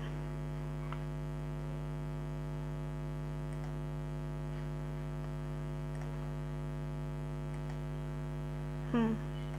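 Steady electrical mains hum, a constant drone made of many evenly spaced tones, running unchanged with nothing else over it.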